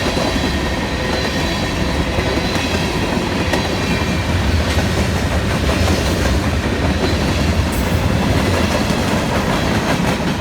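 CSX freight train's cars rolling steadily past, wheels clicking over the rail joints amid a continuous rumble and hiss, with faint thin wheel squeal.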